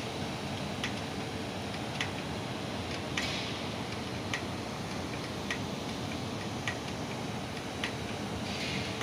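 Steady industrial machinery noise with a sharp tick repeating a little more often than once a second, and a brief hiss twice, once a little after three seconds in and once near the end.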